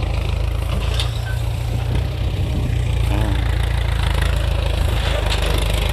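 Ford 6610 tractor's four-cylinder diesel engine running steadily, a deep even drone.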